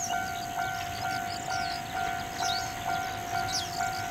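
Railway level-crossing warning bell ringing steadily at about two strikes a second, the signal that a train is approaching. Faint high chirps sound over it.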